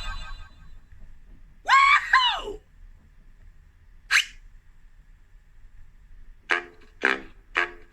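Cartoon sound effects in sequence: a short, high, voice-like yelp in two swoops that rise and fall, then a single short sharp zip, then a run of evenly spaced short pulses about two a second.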